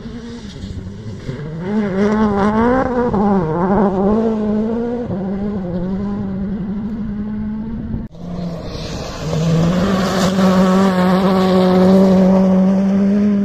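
Rally car engines at speed. One car's engine note wavers up and down for the first several seconds. Then, after a cut, another car holds a steady, loud high-revving note, loudest near the end.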